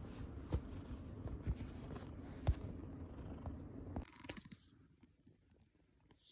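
Cat purring close up, a steady low rumble broken by a few sharp clicks; the purring stops abruptly about four seconds in, leaving only faint sound.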